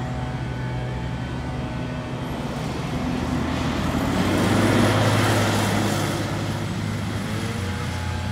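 Fire engine's diesel engine driving past, swelling to its loudest about halfway through as it goes by close, then easing off as it pulls away.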